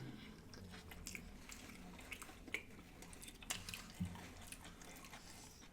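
Faint chewing and mouth sounds of someone eating, with scattered small wet clicks.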